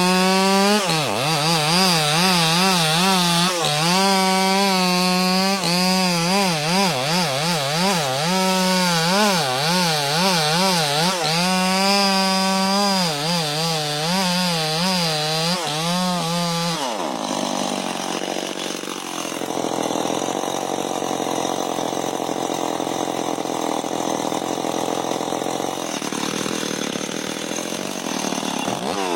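Two-stroke chainsaw cutting through wood at high revs, its engine pitch wavering as the chain bites. About two-thirds of the way in the revs drop off to a lower, rougher running sound, then climb again near the end.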